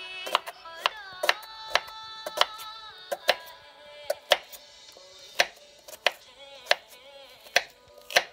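Kitchen knife slicing red onion on a wooden cutting board, the blade knocking the board in irregular strokes a little under twice a second, over background music.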